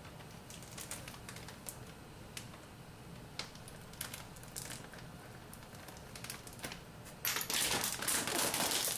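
Plastic sous vide bag of apple slices crinkling, with scattered small clicks as its zip seal is worked shut. Seven seconds in, the bag is shaken hard: a sudden loud, continuous rustle of plastic with the apple pieces tumbling inside.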